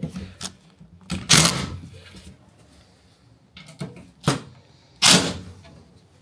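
A few separate knocks and clunks of wooden workpieces being handled, the loudest about a second in and about five seconds in.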